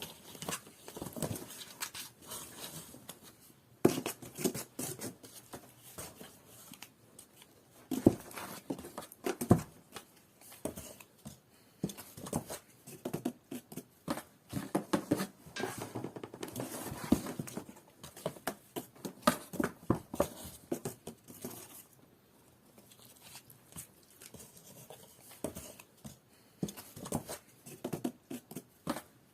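A cat scratching and pawing at a cardboard box: irregular runs of claw scrapes, scratches and light knocks on cardboard, with short pauses between.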